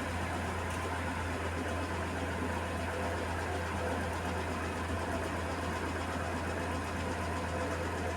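Electrolux 15 kg commercial washing machine running with a steady low hum and vibration, with no rise or fall in pitch.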